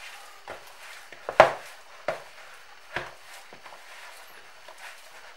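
Pizza dough being kneaded by hand in a plastic bowl on a wooden table: a handful of irregular dull knocks as the dough and bowl are pushed and worked, the loudest about a second and a half in.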